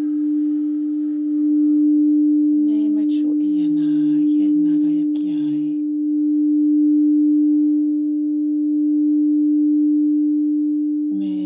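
Crystal singing bowl sounding one steady, sustained tone as it is rubbed round the rim, swelling and easing in loudness. From about two and a half to six seconds in, a woman's voice tones a few short held notes stepping downward over it.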